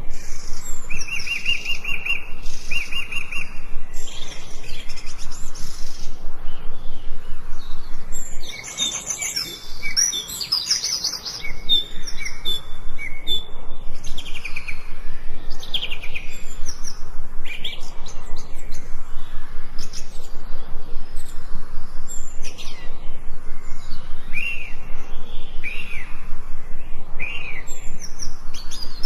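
Several wild birds singing and chirping, with short whistled notes and quick sweeps. A steady repeated note comes early, and busier chirping follows. Behind them is an evenly pulsing background noise that drops away briefly about a third of the way in.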